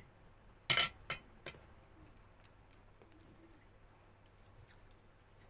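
Metal fork clinking and scraping against a ceramic plate: one louder scrape a little under a second in, then two sharp clinks within the next second, followed by a few faint ticks.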